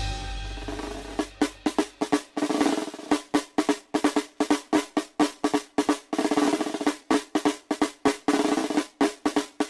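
Vintage Alps battery-operated drumming gorilla toy beating its small tin drums and cymbal with its sticks: rapid tapping strikes, several a second, in uneven runs with brief pauses.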